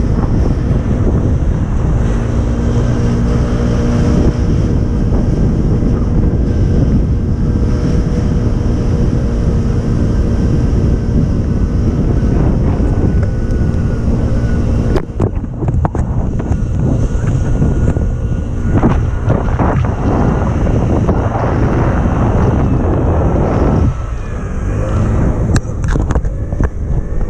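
Motorbike riding along with its engine running under heavy wind buffeting on the microphone. For the first half the engine note is steady; about halfway through it drops away, leaving mostly uneven wind rush.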